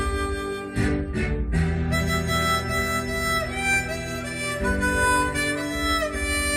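Slow instrumental music: a melody of long held notes over a light accompaniment, with no singing.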